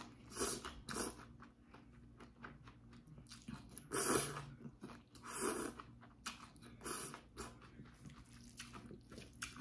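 Close-up eating sounds: a person slurping and chewing chewy spicy mixed noodles (bibim jjolmyeon) with leafy salad greens. There are several separate loud slurps; the biggest come about four and about five and a half seconds in.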